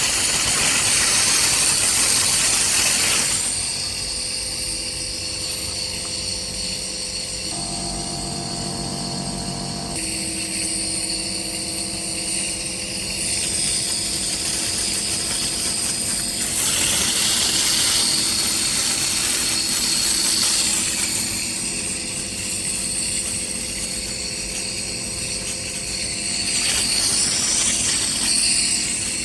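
Nebulizer compressor running steadily with a hiss of mist, growing louder and softer by turns. A short low pitched hum joins it for a couple of seconds about eight seconds in.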